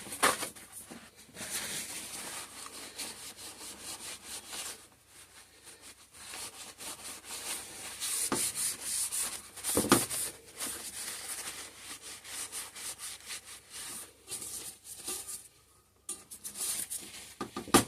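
Rubbing and scraping as a freshly unmolded soap loaf and a soap cutter are handled and slid into place, with two sharp knocks about halfway through.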